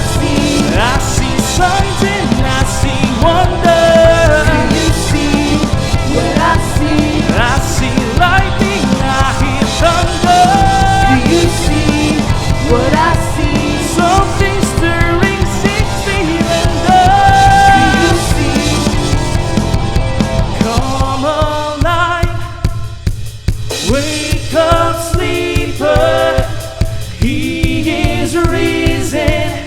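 Christian worship song played by a band with a drum kit and sung vocals. About three-quarters of the way through, the drums and bass drop away, leaving the voices over lighter accompaniment.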